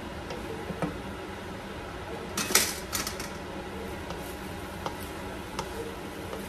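Wooden spatula stirring and knocking against a nonstick pan of cooked orange chicken, with scattered clicks and a louder burst of clatter about two and a half seconds in, over a steady low hiss.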